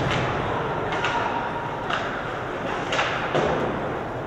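Ice hockey game during live play, with a steady wash of rink noise. Several sharp clacks of sticks and puck come through it, about one a second.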